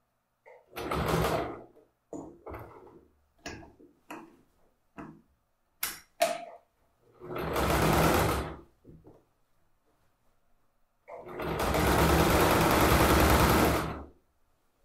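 Domestic electric sewing machine stitching in three runs: a short one about a second in, another about halfway, and a longer, steady three-second run near the end, topstitching a seam. Light clicks sound in the pauses between runs.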